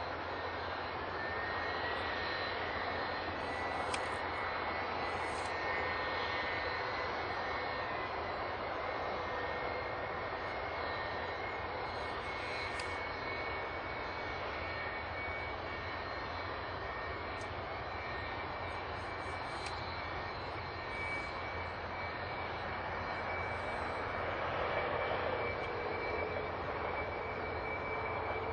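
Boeing 757 jet engine running steadily on the ground with a constant whine, the one engine left running after the other failed from a bird strike; a lower tone in the whine grows stronger near the end.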